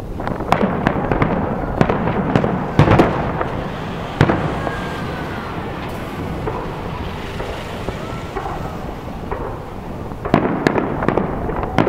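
Fireworks display: aerial shells bursting in a rapid series of bangs over the first few seconds, then a quieter stretch of rumbling and crackling, and another cluster of bangs near the end.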